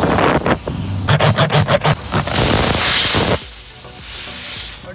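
Tyre plug insertion tool being worked into the puncture hole in a car tyre tread: a quick run of rasping strokes about a second in, over a steady loud hiss.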